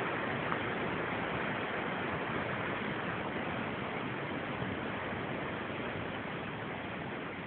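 Steady rushing of the Krka river's waterfall cascades: an even wash of falling water, easing slightly near the end.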